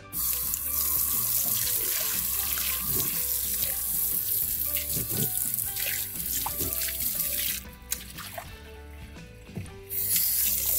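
Handheld hose spray nozzle spraying water into a rock tumbler barrel, rinsing out the grit slurry over a sieve in a utility sink: a steady splashing hiss. It stops about two-thirds of the way through and starts again near the end.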